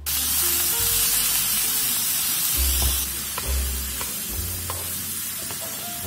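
Pork belly and garlic frying on a hot griddle pan, a loud steady sizzle that starts abruptly, with a few light clicks of a utensil against the pan.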